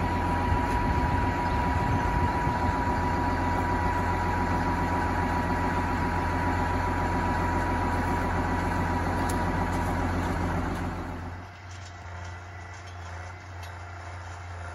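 A tractor's diesel engine idling steadily at close range, a low even hum with a thin steady whine above it. About eleven seconds in it drops away to a much fainter low hum.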